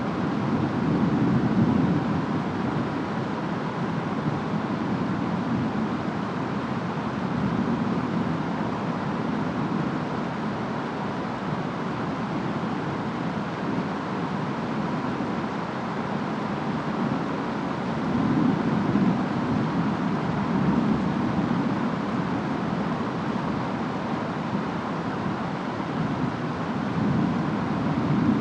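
Steady rain and wind of a distant storm, with a low rumble that swells up three times: just after the start, about two-thirds of the way through, and near the end.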